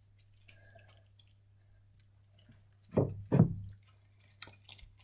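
Homemade butter slime being squeezed in the hands: after a quiet stretch, two short loud squelches about three seconds in, a third of a second apart, followed by a few faint clicks.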